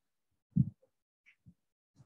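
Chalk against a blackboard while writing: a few short taps, the loudest about half a second in, and a brief squeak a little after a second.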